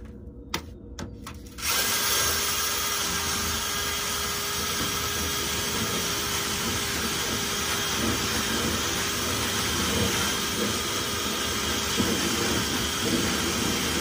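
Cordless drill spinning a rotary dryer-vent cleaning brush on a flexible rod inside the vent duct. After a few short knocks, it starts about a second and a half in and runs steadily with a constant whine.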